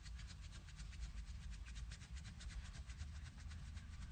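Hands rubbing and shifting the skin of a bare back during massage, a soft, even scratching in quick strokes several times a second, over a faint low hum.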